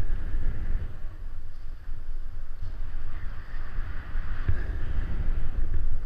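Wind rumbling on the microphone while snowboarding downhill at speed, with the hiss of the snowboard scraping over packed snow. The hiss swells near the start and again in the middle as the board turns.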